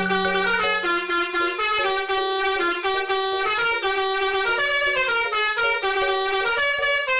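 Telolet bus horn: a multi-tone musical horn playing a quick melody. Its notes step up and down about two to three times a second without a break.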